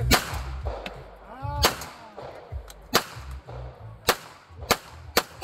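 A 1911-pattern pistol fired six times, single shots about a second apart at first, the last three quicker at about half a second apart.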